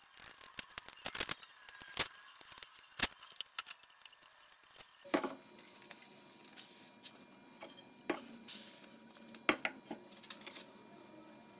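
Steel parts and hand tools clinking and clanking against a machinist's vise as it is worked by hand, in a string of sharp separate knocks. A faint steady hum comes in about five seconds in.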